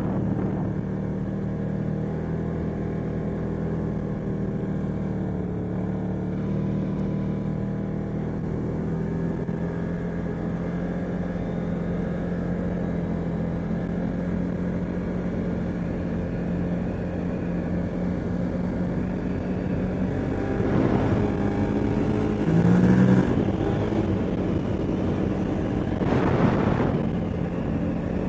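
CFmoto ATV engine, which has a leaking exhaust, running steadily as the machine is ridden. Two louder surges of noise come near the end.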